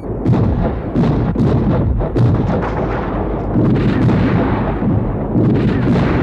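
Cannon bombardment: a rapid, unbroken barrage of booming blasts and explosions, one after another over a deep rumble, as shells strike a fort.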